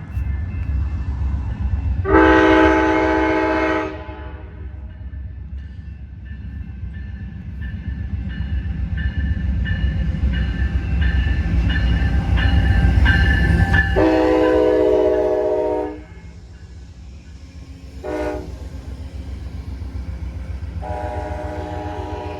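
Amtrak passenger train's Nathan K5LA five-chime air horn sounding in a long, long, short, long pattern, the standard grade-crossing signal, over the steady rumble of the diesel locomotives and cars passing.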